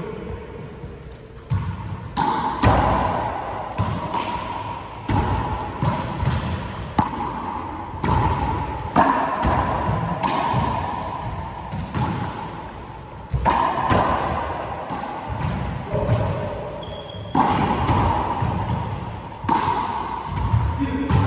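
Handball rally: a small rubber ball slapped by bare or gloved hands and smacking off the walls and hardwood floor of an enclosed four-wall court. There are many sharp hits, about one every half second to a second, each ringing and echoing in the court.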